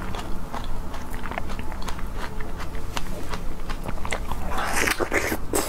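Close-miked mouth sounds of eating fresh strawberries: small wet chewing clicks, then a juicy bite into a whole strawberry near the end.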